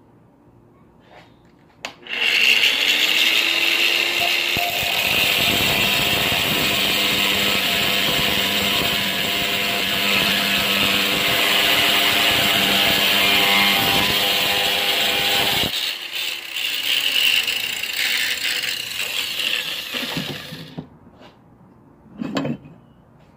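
Makita variable-speed angle grinder switching on with a rising whine as it spins up, then its disc cutting through metal held in a vise for about twelve seconds. The cut eases off into lighter, uneven contact, and the grinder stops about twenty seconds in.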